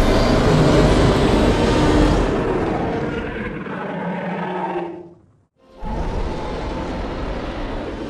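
Custom sound-effect Tyrannosaurus rex roar, deep and loud. One long roar fades out about five seconds in, and a second roar follows after a short pause.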